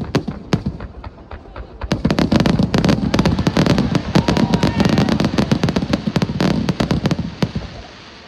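Aerial fireworks going off in a rapid barrage: dense, fast crackling and popping. The cracks thin out briefly about a second in, come back thick and loud, then die away near the end.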